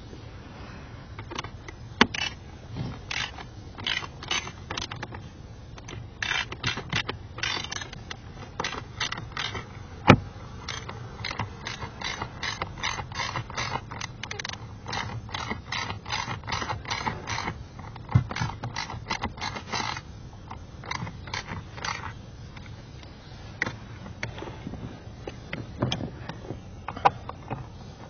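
Hands-on work on the AC blower assembly: irregular clicking, rattling and scraping of tools and plastic parts in clusters, with a few sharper knocks, the loudest about ten seconds in.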